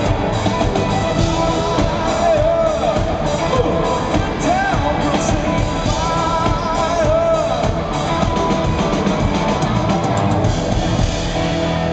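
Rock song with a singing voice over drum kit and guitar, playing loud and steady.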